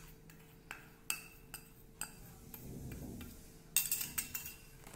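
Metal spoon clinking against a small stainless-steel bowl as black salt is tipped onto the potatoes: a few light, spaced clinks, then a quick run of them near the end.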